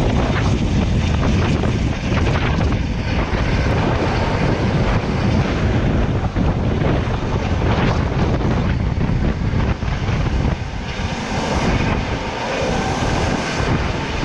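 Coast Guard rescue helicopter hovering overhead: a loud, steady rush of rotor noise and downwash, with the wind buffeting the microphone while the rescue swimmer is lowered into floodwater.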